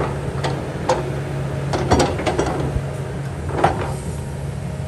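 Kobelco excavator's diesel engine running steadily under work, with several sharp metallic clanks and brief squeals from the digging gear, the loudest about two seconds in and again past three and a half seconds.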